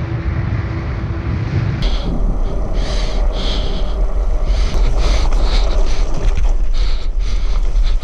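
Wind buffeting the microphone of a camera riding on a moving bicycle: a loud, churning low rumble, with scattered high rattles and scrapes over it from about two seconds in.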